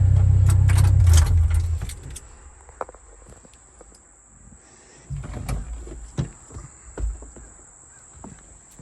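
Kato HD308US-7 excavator's diesel engine idling, then shutting off about a second and a half in and winding down within half a second. Scattered clicks and a few louder knocks follow.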